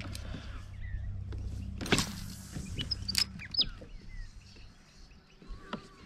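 Electric motor on a kayak running with a steady low hum, with scattered clicks, one sharp knock about two seconds in, and a few short bird chirps.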